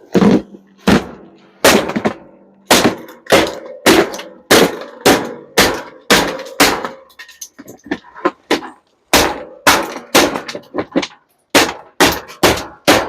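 Repeated hard hammer blows on a dishwasher being broken apart for scrap, about two strikes a second with two short pauses. The first blows leave a brief ringing hum.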